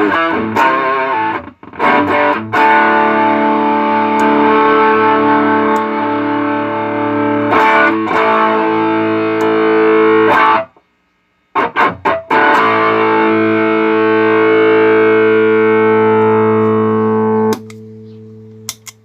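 Electric guitar played through a JHS Double Barrel overdrive pedal: distorted chords struck and left to ring for several seconds at a time, with a brief silence about halfway through and a softer passage near the end. It is a sound test of the pedal after its DC jack was replaced and it was serviced for noise.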